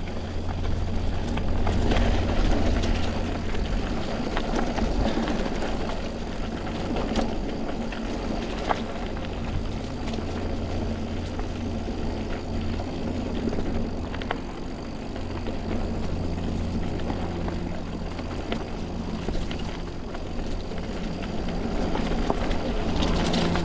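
Mountain bike rolling along a dirt singletrack: steady tyre and wind noise with a low rumble, and scattered rattles and knocks from the bike over the ground.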